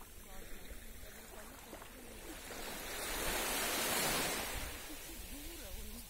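A small wave of a calm Black Sea washing up onto a sandy beach. The surf noise swells from about two seconds in, is loudest around four seconds, then fades back.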